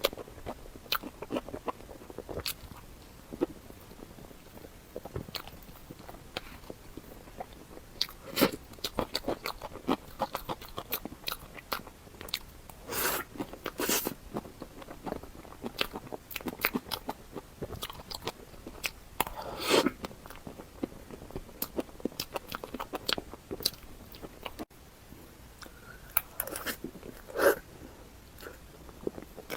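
Close-miked mukbang eating sounds: crunchy bites and chewing, a dense run of sharp crackling clicks with a few louder crunches.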